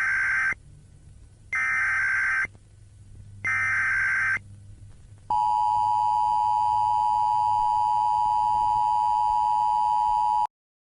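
Emergency Alert System tones: three one-second bursts of the buzzing SAME data header, about a second apart, then the steady two-tone attention signal held for about five seconds, which cuts off abruptly near the end.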